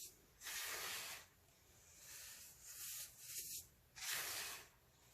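Crunchy baking soda being crushed and crumbled, giving a crisp, hissing crunch. Two loud crunches come about half a second in and about four seconds in, with softer crumbling between them.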